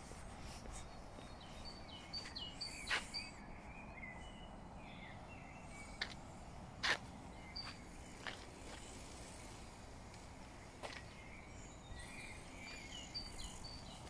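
Songbirds singing in forest, short whistled phrases in bursts near the start and again near the end, over a steady faint background hiss. A few sharp clicks cut in at irregular moments, the loudest about seven seconds in.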